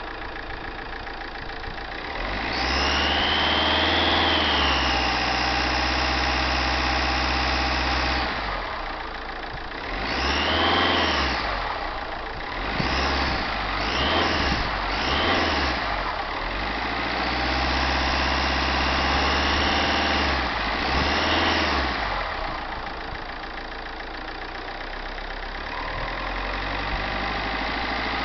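Fiat Stilo Uproad engine with a Garrett GT1749V variable-geometry turbo, revved up from idle several times: two long held revs and a run of short blips, then back to idle. A high whistle rises and falls with the revs. The owner calls the whistle abnormal at start-up and suspects sticking variable-geometry vanes or the valve that controls them.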